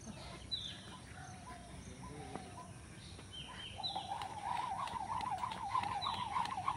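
Birds calling: several short, falling chirps, then a little past halfway a rapid, wavering call that keeps going.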